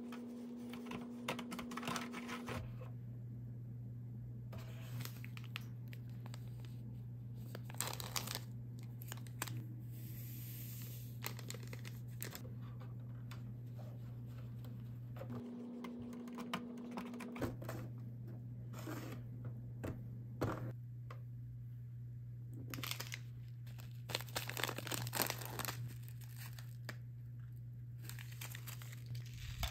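Small plastic spoon stirring and scraping sticky Nerunerunerune candy paste in a plastic tray, heard as irregular short scrapes and clicks. Near the end a foil candy-sprinkle packet crinkles as it is handled and opened. A steady low hum runs underneath.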